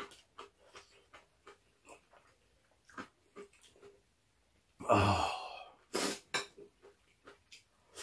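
Mouth and chopstick sounds of someone eating spicy noodles: faint chewing and soft clicks, then a loud burst of breath about five seconds in and a short sharp hiss of breath a second later.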